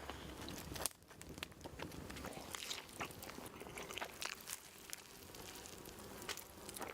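Crunchy bites into a toasted steak sandwich and chewing: irregular crisp crunches, several per second at times.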